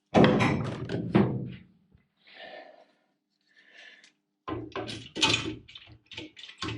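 Hammer blows on engine parts being knocked apart: a run of heavy knocks in the first second and a half, then a quicker run of sharper, lighter knocks from about four and a half seconds in.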